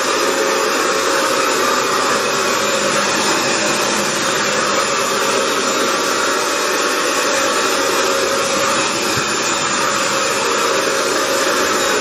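Hoover FloorMate wet hard-floor cleaner running steadily with its suction motor on, the even whine and rush of air going on unbroken as it is pushed back and forth over wet tile.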